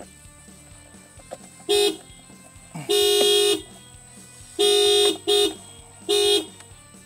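Toyota Prius car horn sounding in five short, uneven blasts, the second the longest. The horn pad is being pressed by accident while the emblem is forced off the steering-wheel airbag cover.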